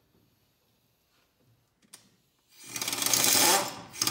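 Pneumatic impact wrench hammering on a flywheel puller's centre bolt to pull the flywheel off a snowmobile engine's crankshaft. It runs in a burst of a little over a second starting past halfway, then gives a second short burst near the end that winds down in pitch.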